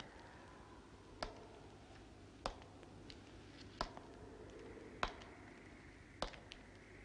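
Slow footsteps of hard-soled shoes on wooden stairs: five single, evenly paced treads, about one every second and a quarter.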